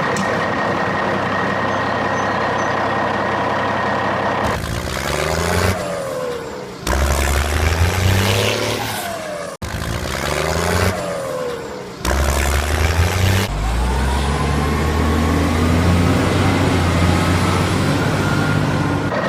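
Truck engine sounds: a steady run, then several abruptly cut stretches of revving up and down, and a long rising rev through the last few seconds.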